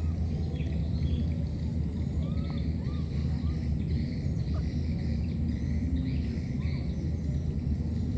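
Outdoor ambience: a steady low rumble under scattered short bird chirps and whistles throughout.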